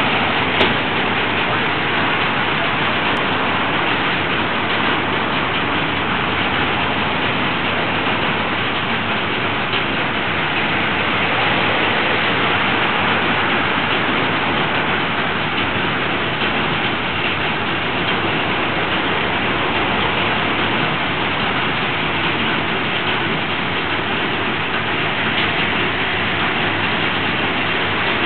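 Narrow-gauge diesel locomotive running as the train pulls out slowly, a steady, even, noisy din with no clear beat.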